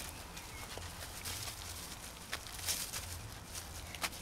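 Faint rustling of wood-chip mulch disturbed by a scampering Jack Russell puppy and a gloved hand digging, with a few sharper crunches about two seconds in and near the end.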